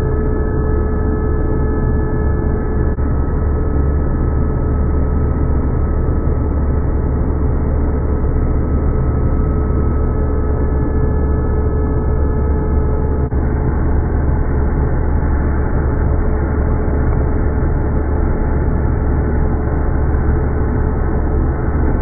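Vacuum cleaner running steadily, its nozzle drawn over a wooden floor picking up cut hair. A constant motor drone with a steady whine over it.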